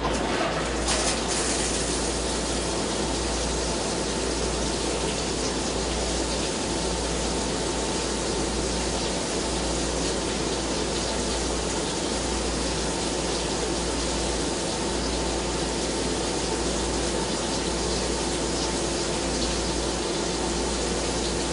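Flood coolant gushing over a steel workpiece on a CNC lathe while a carbide-shank boring bar cuts inside the bore: a steady wash of spraying liquid over a low machine hum, with a faint steady tone.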